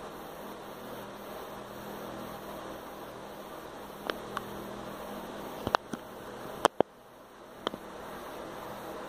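Steady background hiss and low hum, like a fan or mains drone, with a handful of sharp clicks and taps between about four and eight seconds in from a hand-held phone being handled and shifted.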